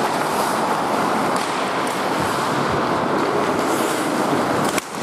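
Ice hockey play on an indoor rink: skate blades scraping and carving the ice, with a few stick or puck clacks, making a steady loud hiss. It drops out briefly near the end.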